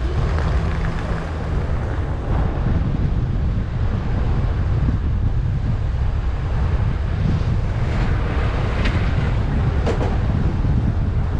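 Car driving: a steady road and engine rumble with wind buffeting the microphone.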